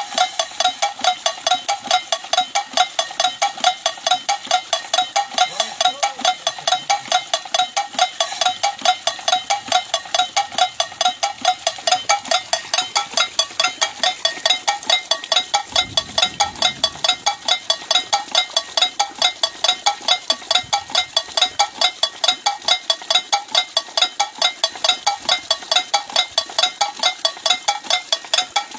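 Homemade bird-scaring device striking metal over and over in a fast, even rhythm, each hit a ringing clink.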